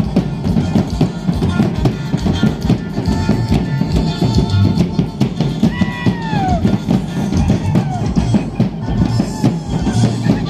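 Loud music with dense, steady drumming. A brief falling tone sounds over it about six seconds in.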